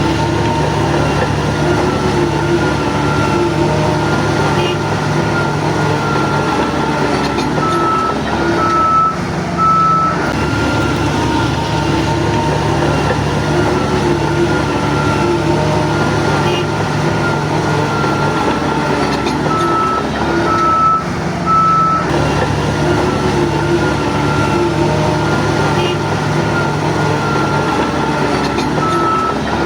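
Diesel engine of a DH17 bulldozer running steadily under load, with its reversing alarm beeping in short spells about every ten seconds as the machine backs up between pushes.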